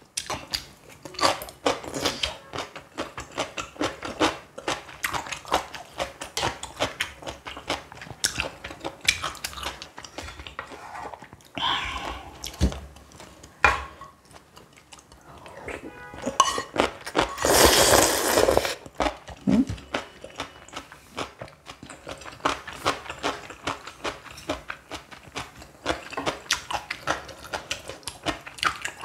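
Close-miked mukbang eating: crunchy bites and chewing of stuffed cucumber kimchi, with chopsticks and spoon clicking against the bowl. About 17 seconds in there is a loud, rushing slurp of ramyeon noodles that lasts about a second.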